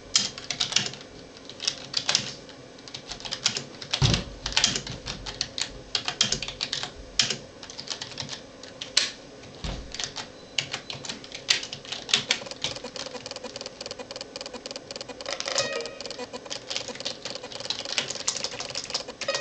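Keys of a computer keyboard being typed on: irregular runs of sharp clicks with short pauses between words.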